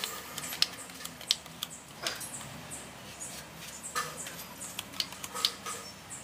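Hand sanding a car fender patched with body filler, using sandpaper on a small block. The strokes come as short, irregular scratches and sharp ticks, a few a second.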